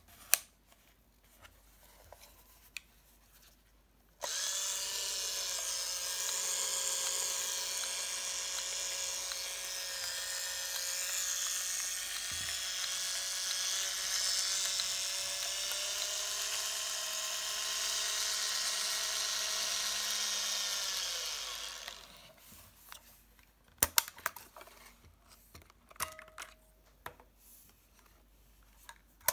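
Olympus Trip XB400's small electric film-transport motor running with a steady whine for about eighteen seconds, starting suddenly and dying away gradually. After it come a few sharp plastic clicks from the camera body.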